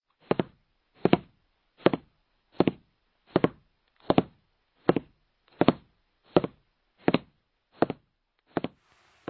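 A steady series of twelve knock-like thumps, about one every three-quarters of a second, each a quick double stroke.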